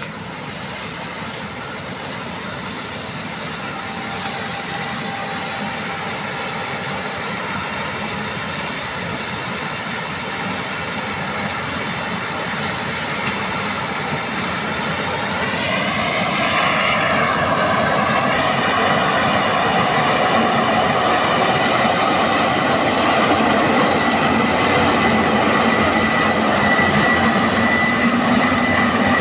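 Combine harvester running, a continuous mechanical din that grows steadily louder. About halfway through, a high whine wavers in pitch, then holds steady to the end.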